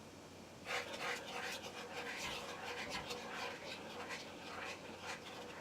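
Butter-based boil sauce being stirred in a pot: a rapid, uneven run of swishing and scraping noise that starts about a second in.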